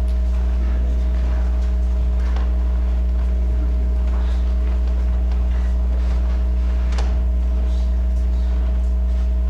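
Loud, steady electrical hum, a low drone with several fainter steady tones above it, with a few faint clicks and knocks scattered through it, clearest about two seconds in and near seven seconds.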